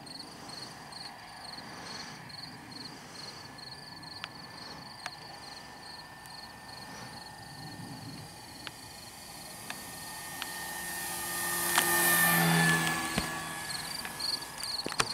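Electric motor and propeller of an E-flite Cessna 150 Carbon-Z RC plane flying past: a steady whine and propeller hum swell to their loudest about three-quarters of the way in, then fade. Crickets chirp in a steady rhythm before the pass and again near the end.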